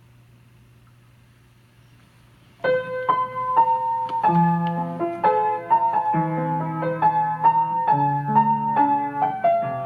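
Solo piano introduction of a Mandopop ballad played back over loudspeakers, coming in suddenly about two and a half seconds in after a faint steady hum.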